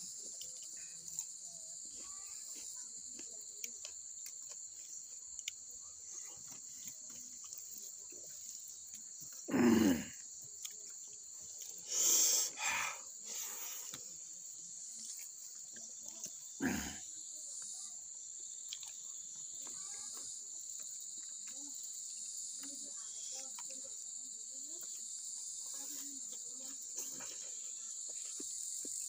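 Steady high-pitched insect chorus, with close, small wet clicks and chewing of someone eating rice by hand. Three louder short sounds stand out near the middle.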